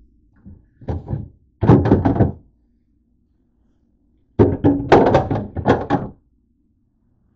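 Knocks and thunks of things being handled inside a refrigerator: a short clatter about two seconds in, then a longer run of knocks from about four and a half seconds as items are moved about in the clear plastic crisper drawer.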